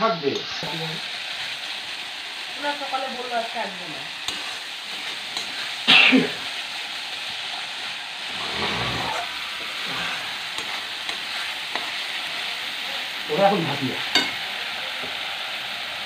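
Spice paste of ground onion, chilli, ginger and garlic with cumin and turmeric sizzling as it fries in oil in an aluminium kadai, stirred and scraped with a metal spoon. A louder knock about six seconds in.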